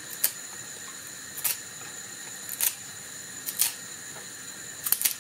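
Short, sharp clicks about once a second, five in all, the last one doubled, over a faint steady hiss: handling noise as dill sprigs are laid on top of cucumbers packed in a jar.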